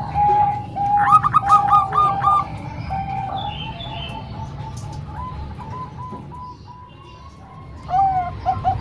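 Several zebra doves cooing and overlapping, each giving runs of short repeated notes. A higher-pitched bird joins about a second in. The calls fade in the middle, and one bird starts a loud, quick run near the end.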